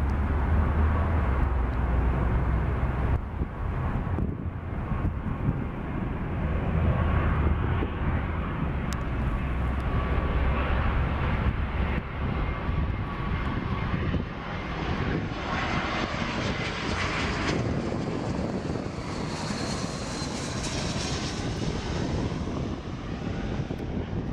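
Jet engines of an Airbus A320-200 (IAE V2500 turbofans) at approach power as the airliner flies in low on final approach. The noise grows brighter with a high whine as the jet passes overhead about two-thirds of the way through, then dulls as it moves away.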